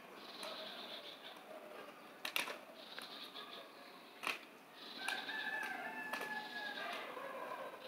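A rooster crowing once, a long call of about two and a half seconds starting about five seconds in, over a faint background of high bird chirping. Two sharp clicks come earlier.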